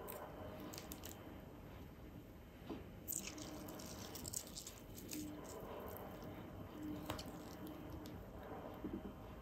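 Faint wet squishes and drips from calamansi being squeezed by hand, with a few light clicks scattered through.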